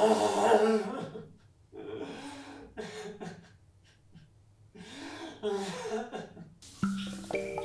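A man's rough, throaty non-speech vocal sounds in several bouts, each about half a second to a second long, the first the loudest. Near the end, music with mallet-percussion notes comes in.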